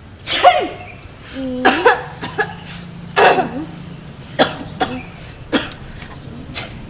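A person coughing repeatedly in a fit: three hard coughs in the first few seconds, then several shorter, weaker ones.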